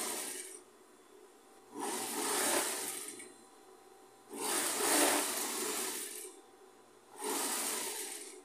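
Industrial straight-stitch sewing machine stitching in short runs: one ending about half a second in, then three more of one to two seconds each, with pauses between and a faint steady hum while it stops.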